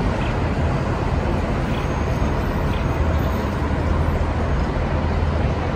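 City street traffic noise: a steady wash of passing vehicles with a deep, continuous low rumble.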